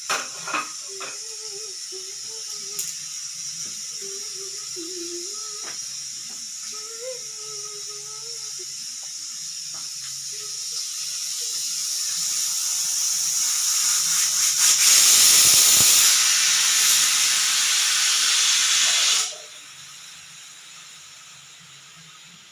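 Pressure cooker letting off steam: a steady hiss swells into a loud blast of escaping steam, the cooker's whistle, which cuts off suddenly about 19 seconds in, leaving a faint hiss.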